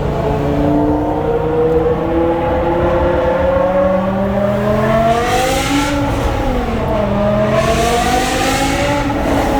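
BMW M5's 5.0-litre V10 engine accelerating in a road tunnel: the revs climb steadily for about six seconds, drop briefly with a gear change, then climb again and ease off near the end.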